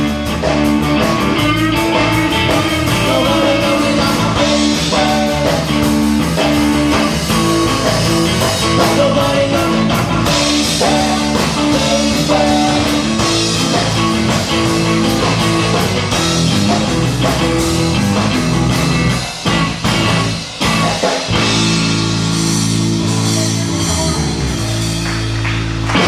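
Live rock band playing an instrumental passage on guitar, bass and drums. About nineteen seconds in the band breaks for a few drum hits, then holds one long chord to close the song.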